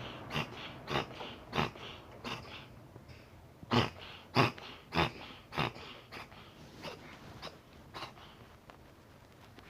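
Cat sneezing in a long fit: short, sharp sneezes about every half second, loudest around the middle and fading away near the end. The sneezing persists despite treatment.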